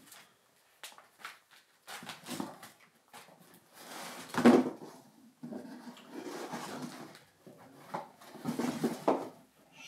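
Rustling and scraping as packed items are handled in a cardboard box: the fur-covered flap of a knapsack dragged against the cardboard, the loudest rustle about four and a half seconds in, then paper wrapping crinkling near the end.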